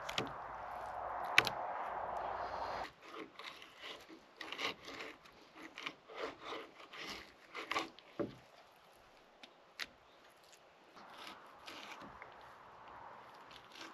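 Fillet knife slicing and scraping along a trout fillet on a wooden cutting board: many short, irregular scraping strokes, with one sharp click about a second and a half in. A steady rush runs under the first three seconds, stops abruptly, and comes back faintly near the end.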